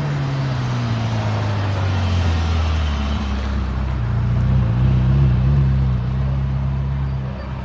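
Sports car engine running at low revs as the car slows and rolls up. Its note drops over the first few seconds, then holds low and steady and grows briefly louder near the middle.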